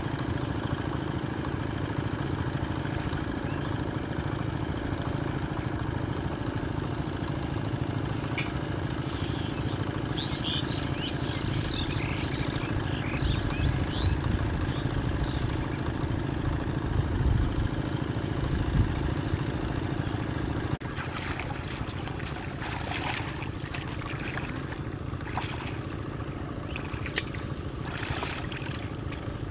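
A steady low motor drone with a fixed pitch runs throughout. In the second half, water splashes and sloshes in short bursts as hands grope and scoop in the shallow muddy pond.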